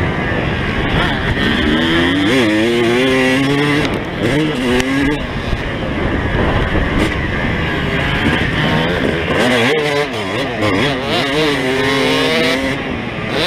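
Yamaha YZ250 single-cylinder two-stroke motocross engine under riding load, its pitch rising and falling again and again as the throttle is opened and rolled off around the dirt track.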